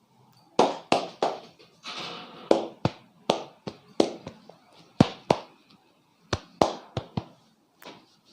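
A barber's hands slapping a client's head in a percussive head massage: about fifteen sharp slaps, often in quick pairs, with a short rubbing sound about two seconds in.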